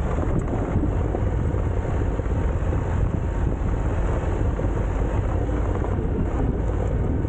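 Motorcycle being ridden on a gravel road: a steady low rumble of engine and road noise, mixed with wind buffeting the rider's microphone.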